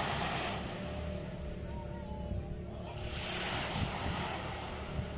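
Small sea waves breaking and washing up a pebble shore, two swells of surf about three seconds apart, one at the start and one about three seconds in.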